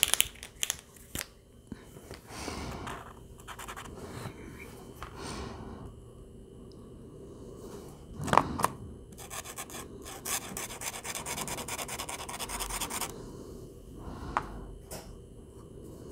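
The nib of a hot pink Posca acrylic paint marker rubbing and scratching across sketchbook paper as a colour swatch is laid down. A few sharp clicks come in the first second and one more about eight seconds in.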